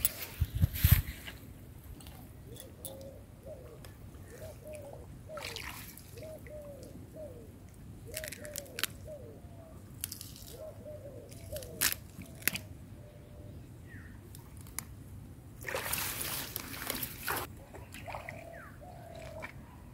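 Pond water sloshing and dripping as hands pull water-lily stems and dig tubers out of the mud, with small splashes throughout, a bigger splash about a second in and a longer sloshing splash near the end. A faint short chirp repeats many times through the middle.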